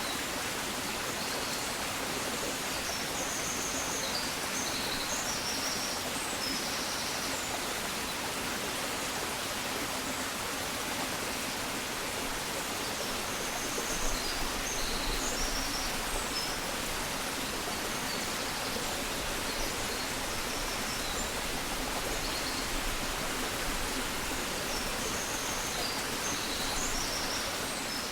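Dawn countryside ambience: a steady rushing background noise with small birds chirping high-pitched in three brief flurries.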